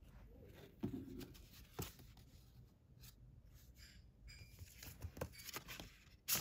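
Faint rustling of stiff paper, with a few light taps and clicks, as a card envelope is handled and lifted off the lid of a paperboard box.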